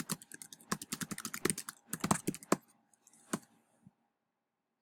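Typing on a computer keyboard: a quick run of keystrokes for about two and a half seconds, then a few last taps before it stops.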